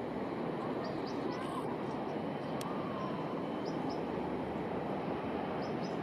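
Steady outdoor background rush at an even level, with a few faint, short, high bird chirps.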